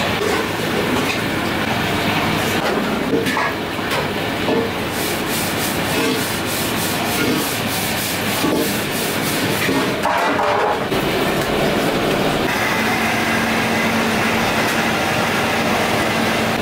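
Steady rushing noise of gas burners under steel pots, with scraping and light clatter of steel utensils.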